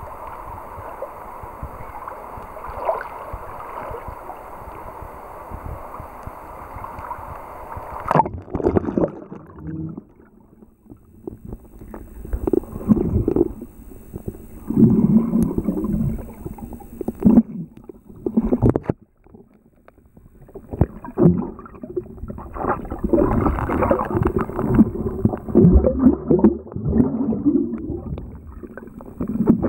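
Steady rush of a shallow mountain river flowing over stones, then about eight seconds in the camera goes underwater and the sound turns muffled: irregular gurgling and bubbling with dull knocks of water moving around the camera as the swimmer dives.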